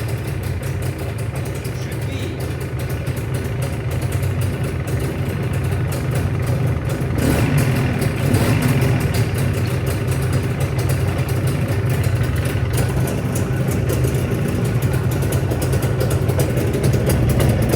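Jawa 350 two-stroke twin engine idling just after a cold start on a new piston kit, warming up. About seven seconds in it runs a little faster and louder.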